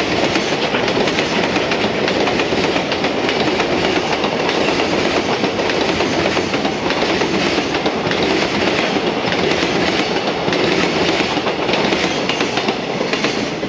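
Container flatcars of a JR Freight freight train rolling past, their wheels clattering steadily over the track. The sound eases a little near the end as the last wagon goes by.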